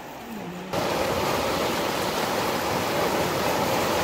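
Fast-flowing floodwater of a river in flash flood, a loud steady rush of water that cuts in abruptly under a second in.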